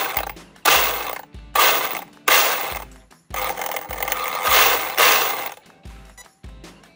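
Electric motors of a dual-motor Arrma Infraction RC car, one driving the front wheels and one the rear, revved in repeated throttle blips on the bench, with the gear drivetrain whirring up and spinning down each time. About eight blips, a little under a second apart, fainter near the end.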